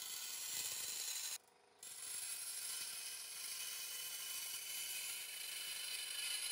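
Benchtop bandsaw cutting thin aluminum aircraft skin sheet, a steady high-pitched hiss. It drops out briefly about a second and a half in, then carries on.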